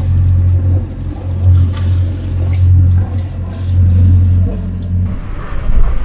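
Sailing yacht's inboard engine running steadily under way, a low hum, with water splashing along the hull. About five seconds in the hum cuts off and gives way to wind and open sea.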